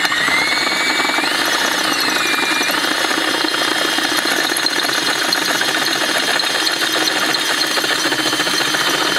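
Electric drill on its low setting boring out a wheel's lug hole with a 1/2-inch bit: a steady motor whine over the grinding of the bit cutting metal. The whine climbs in pitch during the first second or two and shifts a couple of times before holding steady.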